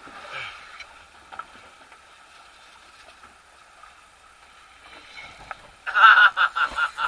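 Spinning reel's drag buzzing in a loud run of rapid clicks for about two seconds near the end as a hooked fish pulls line against the bent rod, after several seconds of low, steady background.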